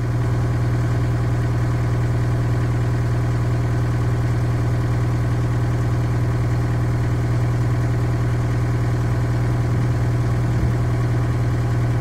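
John Deere skid steer's Yanmar diesel engine idling at a steady, unchanging speed: a low, even drone.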